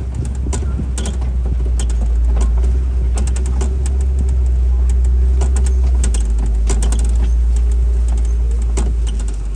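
Safari truck driving along: a heavy low rumble with a steady engine whine, swelling toward the middle, and frequent clicks and rattles from the vehicle.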